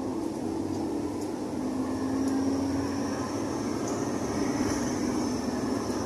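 Intercity bus under way, heard from inside the cabin: steady engine drone and road noise with a low hum.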